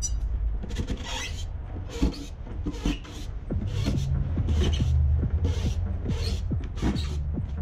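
A cordless impact driver backs out the screws holding a subwoofer in its enclosure, under background music with a steady beat.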